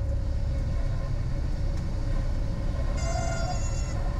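Cessna 172 rolling out on the runway after touchdown with its engine at idle, a steady low rumble. About three seconds in, a steady horn-like tone with many overtones comes in over it.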